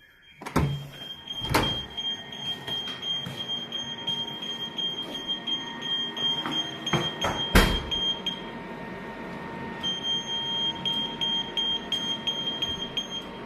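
Air handling unit alarm buzzer beeping rapidly in a high tone over the steady hum of the running unit, with a few loud knocks. The beeping stops a little past the middle and starts again shortly after.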